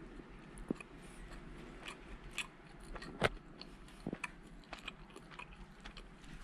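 A person eating close to the microphone: quiet chewing with scattered small clicks and taps. The loudest is a sharp click about three seconds in.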